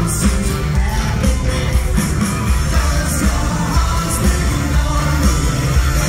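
Live rock band playing loud: electric guitar, bass guitar and drums under a lead vocal, heard from the audience with a steady beat.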